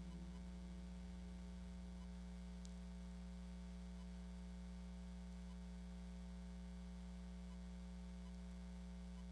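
Steady electrical mains hum, a low, even buzz with no music or voices. A faint tick is heard about three seconds in.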